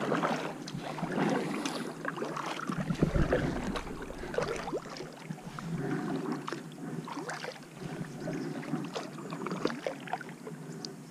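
Double-bladed kayak paddle stroking through calm water beside an inflatable kayak: irregular splashes, drips and small knocks. A short low rumble of wind on the microphone about three seconds in.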